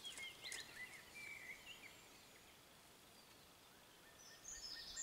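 Faint bird calls: short descending chirps in about the first second and again near the end, over otherwise near-silent quiet.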